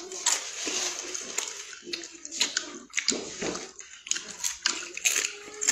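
Crunching and chewing crisp fried potato chips: a quick run of sharp, crackly bites.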